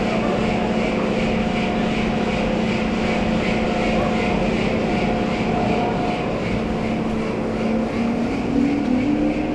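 Ski chairlift machinery running with a steady mechanical hum and a faint rapid pulsing above it.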